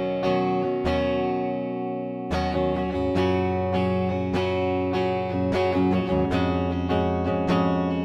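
Washburn XM STD2 electric guitar played through its Duncan neck pickup with a clean, undistorted tone. Chords ring out and are re-struck about a second in, then a steady pattern of picked and strummed chords runs from about two seconds in.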